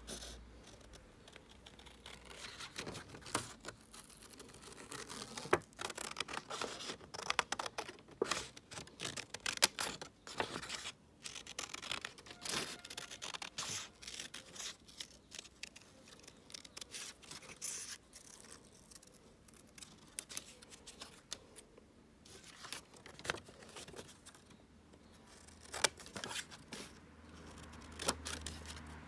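Small scissors cutting thin printed card, in an irregular series of short snips and crisp cuts.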